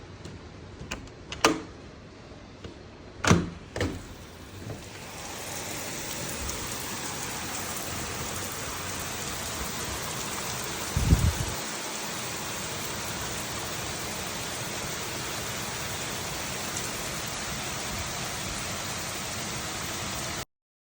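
Heavy rain pouring down in a thunderstorm: a few sharp knocks at first, then from about five seconds in a steady, even downpour, with one short low thump about halfway through. The sound cuts off suddenly just before the end.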